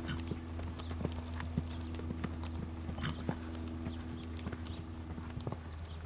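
A horse's hoofbeats as it canters on a sand arena, an uneven run of short thuds and clicks over a steady low hum.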